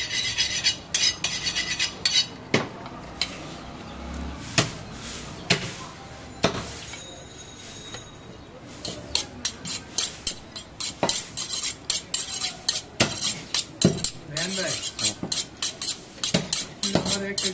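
A butcher's knife being sharpened on a honing steel: quick runs of metal-on-metal strokes, with single clinks between the runs.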